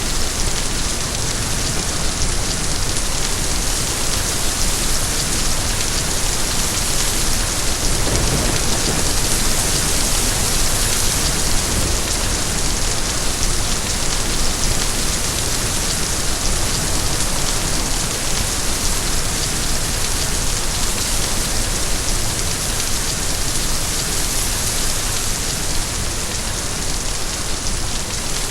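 Steady rain falling, an even hiss of many drops without let-up, with a brief low rumble about eight seconds in.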